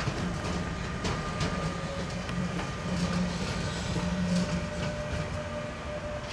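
METRANS class 386 electric locomotive rolling through the yard. Its wheels click irregularly over rail joints and points over a steady electric hum.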